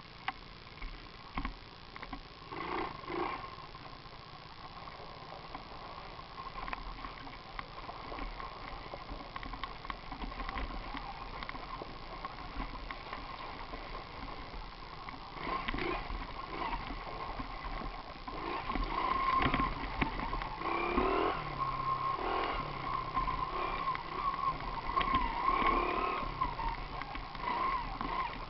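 Mini moto's small engine whining steadily at a distance, its pitch wavering up and down as the throttle changes; it grows louder in the second half as the bike comes closer.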